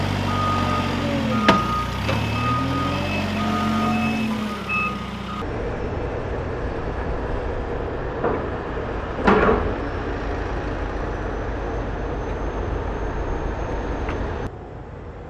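Case 580 Super M backhoe loader's diesel engine running and changing pitch as it works its front bucket, with the reverse alarm beeping through the first few seconds and one sharp clack. Then a second diesel machine runs steadily while its toothed bucket digs into soil, with two knocks about a second apart.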